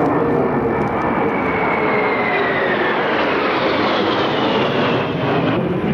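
Jet engines of three military jets flying past in close formation. A steady, loud roar carries a whine that slowly falls in pitch as they pass.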